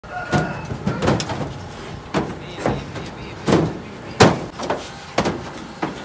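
Irregular heavy knocks and clangs, about ten in six seconds, from a cow being loaded onto a pickup truck: its hooves strike the truck bed and it bumps the bed's metal rail cage.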